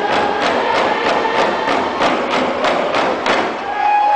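A large group of Coast Salish hand drums beaten together in a steady beat, about three strokes a second, over group singing. The drumbeat stops about three seconds in.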